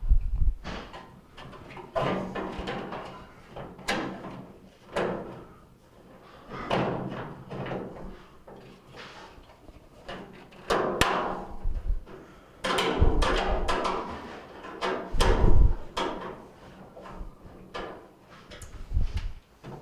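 Sheet-metal dryer panels being handled and screwed back on: a series of clunks and rattles, one every second or two.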